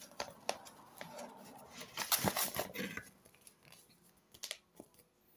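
A sheet of paper rustling and crinkling as it is handled and opened, with light clicks and taps. The rustling is loudest about two seconds in and dies down after about three seconds.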